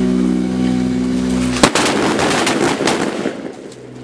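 A steady low hum, then about a second and a half in, M4 carbines open fire: a rapid string of sharp rifle shots lasting about a second and a half before it trails off.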